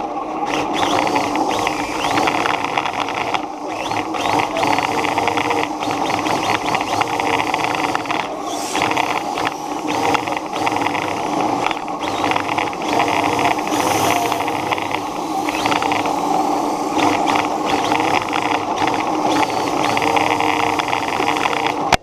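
Motor and drivetrain of a small vehicle running, picked up by a camera mounted on it: a steady whine of several held tones over a rushing noise, shifting slightly in pitch.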